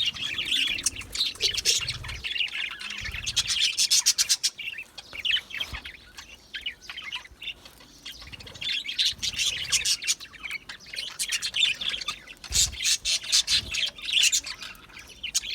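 A flock of budgerigars chattering, with rapid warbling trills and chirps coming in bursts and a short lull about halfway through.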